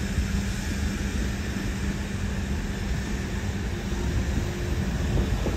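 Steady low rumble of outdoor city background noise, vehicle-like, with no distinct events.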